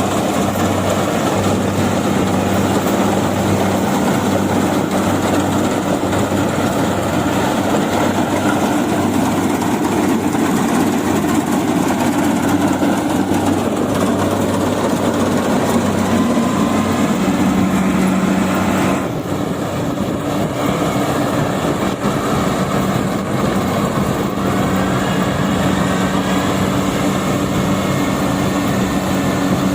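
Yanmar AW70V combine harvester's diesel engine and threshing machinery running steadily, a dense mechanical clatter over a steady engine hum. About two-thirds of the way through the sound drops slightly and the engine note shifts.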